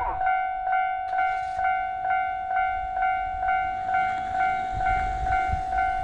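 Japanese railway level-crossing warning bell ringing: an electronic ding repeated evenly about two and a half times a second over a steady ringing tone, the signal that a train is approaching and the crossing is closing.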